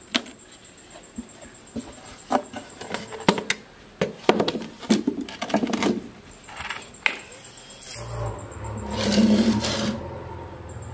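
Hands handling a small glued MDF speaker box: a run of irregular knocks, taps and rubbing scrapes against the wooden panels. About eight seconds in, a steady low hum starts, with a louder swell a second later.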